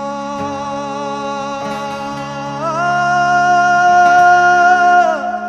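Kannada devotional Shiva bhajan: one long held sung note over a steady drone. The note steps up in pitch about halfway through, grows louder, and falls away near the end.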